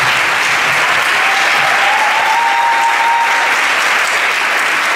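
Audience applauding steadily, with a thin whistle-like tone rising slightly from about a second in until past three seconds.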